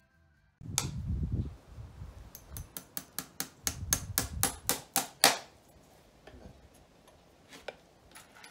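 Farrier's hammer tapping nails into a horse's hind shoe: a run of quick, sharp metal taps, about four a second, the last blows the loudest.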